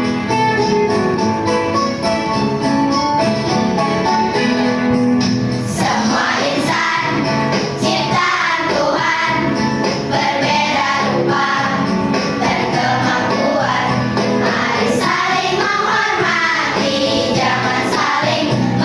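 Children's school choir singing with musical accompaniment: held, steady notes for the first few seconds, then moving sung phrases from about six seconds in.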